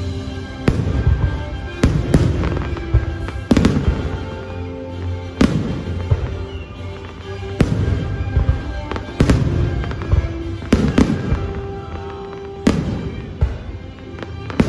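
Aerial firework shells bursting in a show finale: about a dozen sharp bangs, one every second or so, with dense crackle between them, over steady music.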